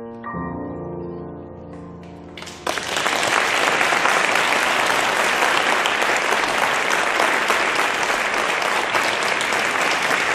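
A closing chord on a grand piano, played four hands, rings and fades for about two seconds. Then applause breaks out and keeps going at a steady level.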